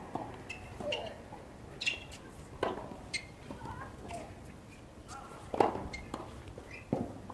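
Tennis balls struck by rackets and bouncing on a hard court in a practice rally: sharp pops every second or so, the loudest about five and a half seconds in, with short high squeaks between them.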